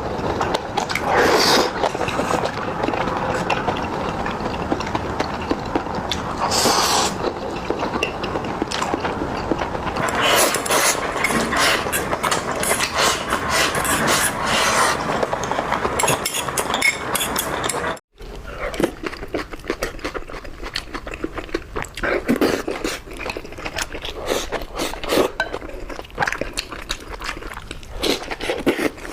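Close-miked eating sounds of spicy food: wet chewing, smacking and slurping, with many small crackles, and an abrupt break about two-thirds of the way through.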